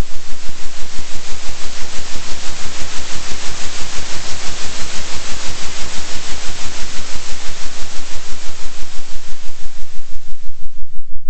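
Synthesized noise pulsing in volume at about three swells a second, a 3 Hz oscillation, over a steady low hum. The hiss grows brighter toward the middle and turns duller near the end.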